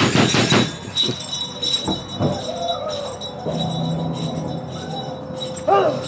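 Jingle bells shaken rapidly, stopping abruptly under a second in. A few soft knocks follow, then a short rising-and-falling cry near the end.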